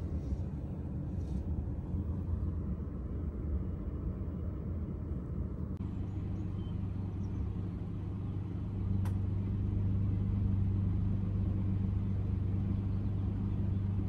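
Steady low rumble and hum heard from inside a parked car. The hum grows stronger about six seconds in and again about nine seconds in, with a faint click near the nine-second mark.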